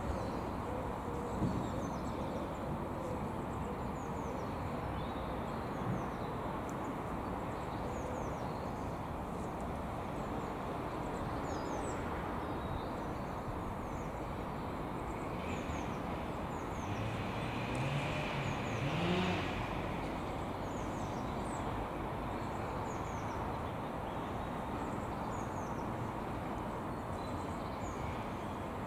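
Outdoor ambience: a steady background rumble of road traffic with small birds chirping often and high-pitched, and a motor vehicle passing with a rising engine note a little past halfway.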